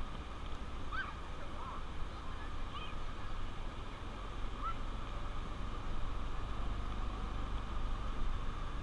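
Honda Trail 125's single-cylinder engine running steadily under a hiss of wind and road noise, with a few short high calls in the first half.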